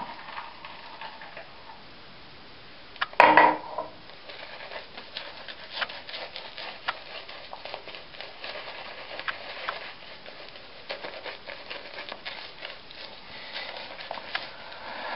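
Shaving brush working lather onto a face: a dense run of soft, crackly, squishing ticks from the bristles moving through the shaving cream. A short, louder sound about three seconds in.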